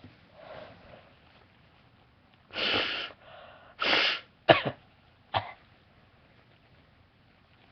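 A person with a head cold sneezing and coughing: two longer explosive bursts about a second apart, then two short sharp ones, the first of these the loudest.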